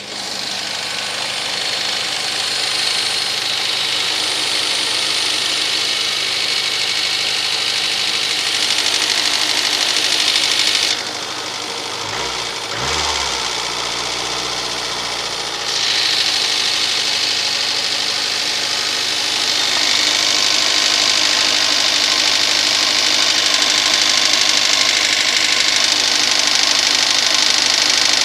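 Cold VAZ 2110 8-valve engine running with a distinct knocking crackle over its idle. The owner says the knock is there only when cold and disappears fully once the engine reaches operating temperature, and links it to valve clearance. The clatter goes duller for a few seconds midway.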